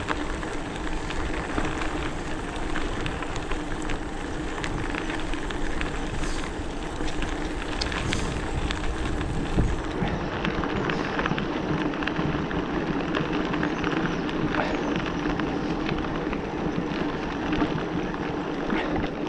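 Hardtail electric mountain bike riding a dirt forest trail: the tyres crackle and crunch over the ground and the bike rattles over bumps in a steady stream of small clicks, with a steady hum underneath from the e-bike's motor.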